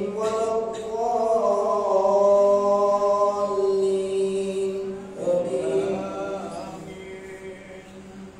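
A man reciting the Quran aloud in a slow, melodic chant during taraweeh prayer, holding long drawn-out notes. A new phrase begins about five seconds in and trails off near the end.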